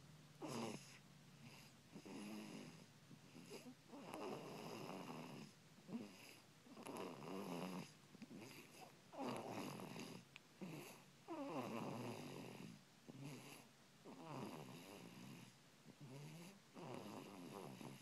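Snoring: a steady run of rough snores, each about a second long, coming every two to three seconds.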